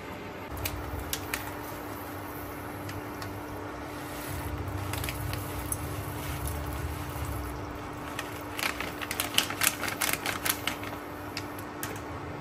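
Dry instant millet mix shaken out of a plastic packet into a steel saucepan of water: packet crinkling and rapid clicking, densest in a flurry about nine to eleven seconds in, over a steady low hum.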